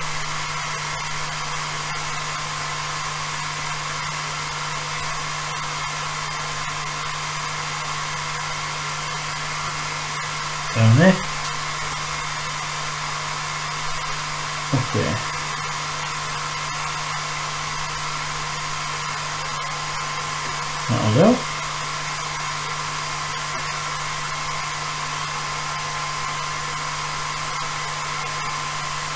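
Cooling fan of a Genmitsu Jinsoku LC40 10-watt laser engraver running steadily, a continuous whoosh with a low hum, while the machine sits idle. Three brief murmured vocal sounds from a man come through over it.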